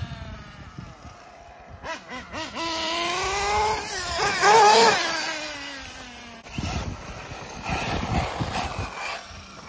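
RC buggy's motor revving as the car drives around a dirt track. The pitch climbs to a loud peak about halfway through, then falls away, and the rest is a rougher, noisier run.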